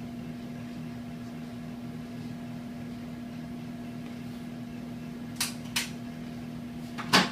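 Steady electrical hum of the x-ray room equipment, with two light clicks about five and a half seconds in and a louder sharp knock at the very end.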